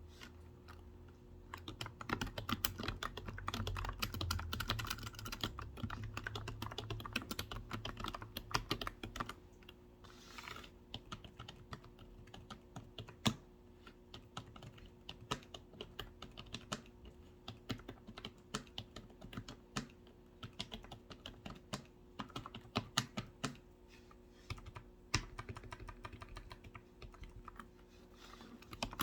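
Typing on a computer keyboard: a quick, dense patter of key clicks for the first nine seconds or so, then slower, more scattered keystrokes.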